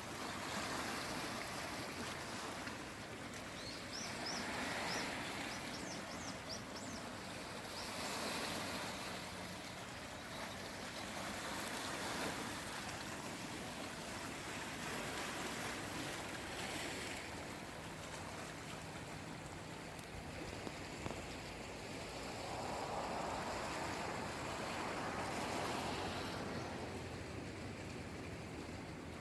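Small sea waves washing onto the shore, the wash swelling and easing every few seconds. A quick run of short high chirps comes about four seconds in.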